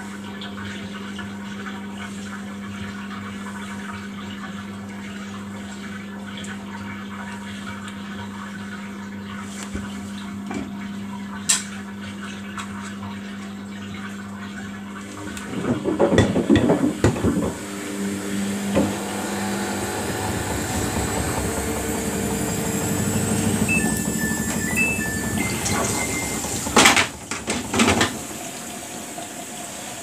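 Samsung WF80F5E0W4W front-loading washing machine mid-cycle, humming steadily for about half the time. Around the middle comes a clatter as the detergent drawer is pulled open, then water rushing and sloshing in the drum, with a couple of sharp knocks near the end.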